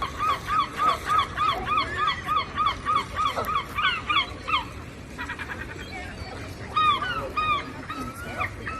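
Gulls calling: a fast run of repeated yelping calls, about four a second, for roughly four and a half seconds, then after a short pause a few louder single calls.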